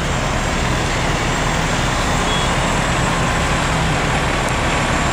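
Fire trucks' diesel engines running steadily, a loud, even engine hum with a wide hiss over it.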